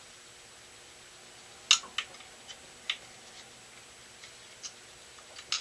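Irregular sharp metallic clicks and taps from tightening a small aluminium workpiece into a mini metal lathe's 3-jaw chuck with loose tommy-bar pins. The loudest click is about a second and a half in, with a few lighter ones after it.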